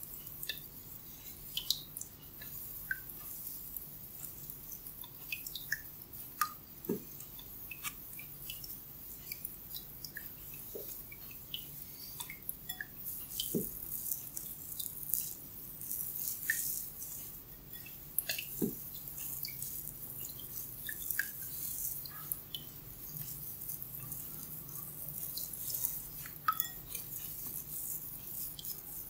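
Hair crackling and snapping as tufts of hair are twisted and pulled close to the scalp in a hair-cracking head massage, with irregular sharp crackles scattered throughout over a faint steady hiss.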